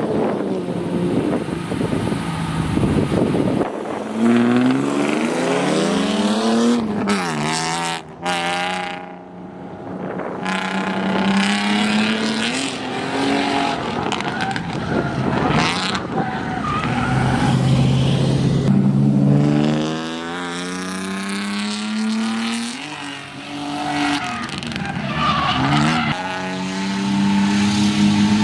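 BMW E36 328i's straight-six engine, exhaust fitted with a 3-inch glass pack, revving hard. Its pitch climbs and falls again several times, with a brief lift-off about nine seconds in.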